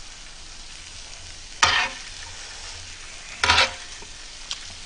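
A metal spoon scraping across a grill pan, loudly twice and once more faintly, over the steady sizzle of bulgogi frying.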